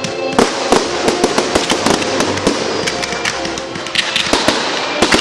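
Fireworks going off in a dense barrage of sharp bangs and crackling, many reports each second, with music playing faintly underneath.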